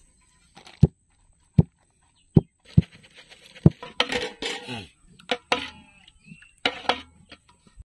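Metal cooking vessels knocked and handled: about five sharp clanks with a short ring over the first few seconds, then a noisier stretch of clattering and rustling with a few more knocks.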